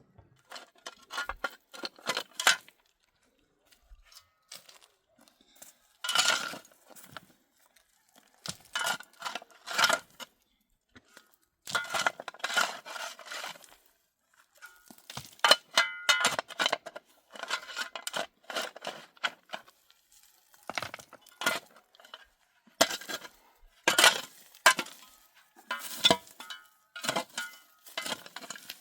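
Irregular clinking and clattering of hard objects, some with a brief metallic ring, coming in clusters with short pauses between them.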